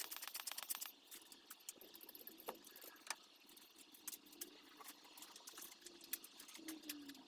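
A rapid run of light ticks for about the first second, then scattered small clicks and taps, with a faint low hum underneath.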